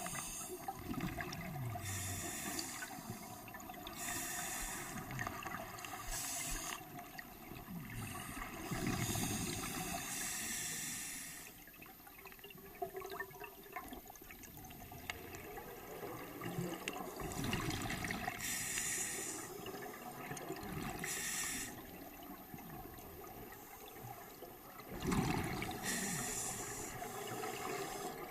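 Scuba diver breathing through a regulator underwater: a hiss of air drawn through the regulator alternating with gurgling rushes of exhaled bubbles, every few seconds.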